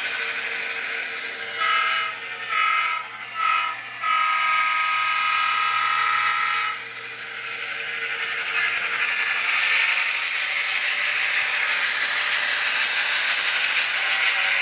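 Sound decoder in an HO-scale GP9 diesel model playing the grade-crossing horn signal through its small speaker: two long blasts, a short one, and a final long blast, over the steady hum of the recorded prime mover. A steady hiss rises over the engine sound in the second half.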